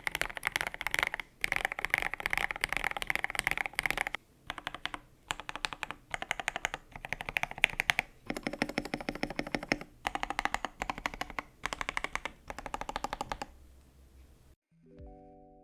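Typing on a foam- and tape-modded KBD67 Lite R3 mechanical keyboard with Akko CS Jelly White linear switches and NicePBT PBT keycaps: fast runs of keystroke clacks in bursts with short pauses. The typing stops about a second before the end, where soft piano music comes in.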